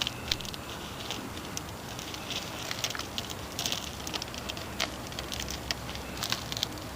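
Hands digging through dry soil in a sweet potato bucket: an irregular run of crackles, rustles and small clicks as soil, roots and tubers are pulled apart.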